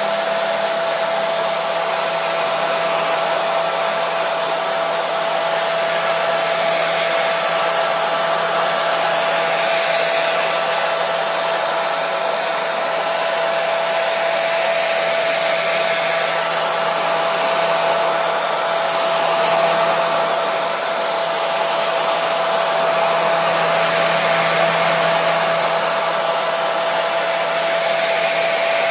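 Electric hair dryer running steadily: a constant rush of air with a steady whine from its motor and fan.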